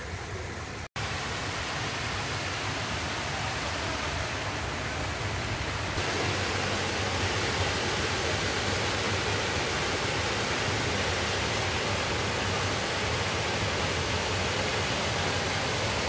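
Artificial waterfall, several streams of water falling over a rock wall into a pond: a steady rushing of water that grows louder about six seconds in.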